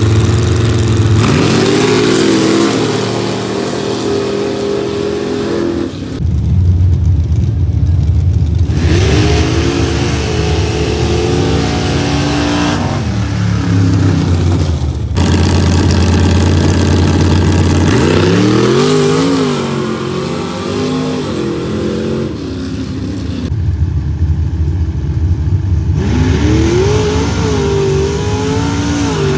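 Pickup truck engines revving and accelerating hard off the line down a dirt drag strip. The pitch climbs and falls again through several short passes, with abrupt jumps in the sound between them.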